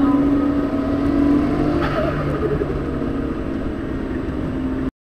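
Car engine running at a steady high speed, heard from inside the car on a race track, with a short change in its note about two seconds in. The sound cuts off suddenly just before the end.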